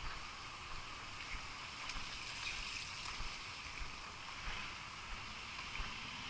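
Steady trickle of water running over the rocks of a small brook, with soft footsteps on a paved path about every two-thirds of a second.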